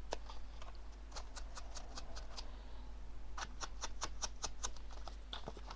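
Quick light taps of a distress ink pad dabbed along the edges of a paper card, about five a second in short runs with brief pauses.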